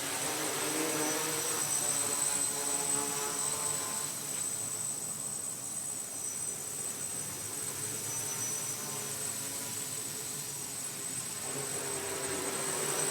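Aerosky quadcopter's electric motors and propellers buzzing in flight, the pitch shifting up and down as it manoeuvres, louder in the first few seconds and again near the end. A steady high-pitched tone runs alongside.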